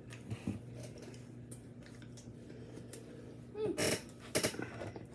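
Crunchy biting and chewing of a burger topped with hot Cheetos, heard as scattered crisp clicks and crackles. A louder burst of crunching comes about four seconds in, with a short voiced 'mm'.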